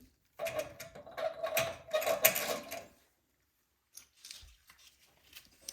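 A small mechanism whirs steadily with rapid fine clicking for about two and a half seconds. It stops, and a few faint clicks and taps follow near the end.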